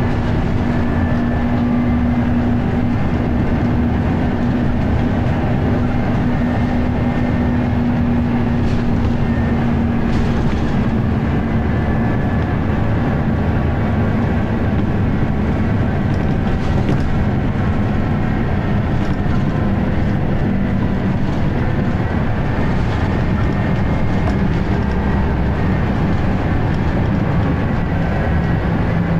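Scania L94UB bus's diesel engine and ZF automatic transmission running steadily under way, heard from inside the passenger saloon. The drive tone drops a little in pitch about ten seconds in and again near the end.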